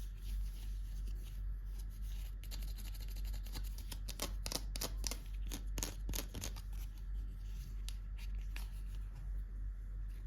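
Packaging being handled and opened by hand: a run of crisp crinkles, snips and clicks, thickest in the middle, over a steady low hum.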